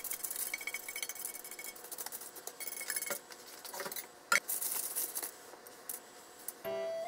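Toasted panko breadcrumbs scraped out of a frying pan with wooden chopsticks onto aluminium foil, a run of small clicks and rustles over the first three seconds. A sharp knock comes about four seconds in, then lighter scattered clicks as chopsticks spread the crumbs on the foil.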